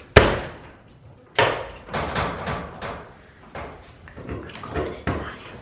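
Knocks and bangs on garage door hardware: a sharp, loud bang at the start, another about a second and a half in, then a series of lighter knocks and rattles.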